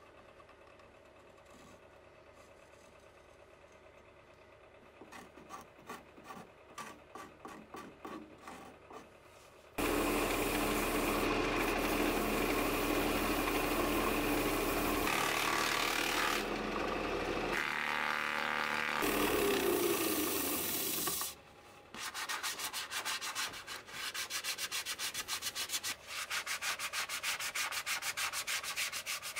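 Short hand-scraping strokes of a small steel scraper on the inside of a cherry bowl. About ten seconds in, a much louder, steady sandpaper rub starts on the bowl as it turns on a wood lathe. After a brief pause about two-thirds through, the sanding goes on in quick back-and-forth strokes.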